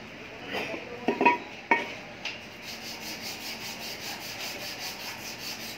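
Hand work on an alternator rotor: a few sharp metal clinks from tools and parts about a second in, then fast, even rubbing strokes, about five a second.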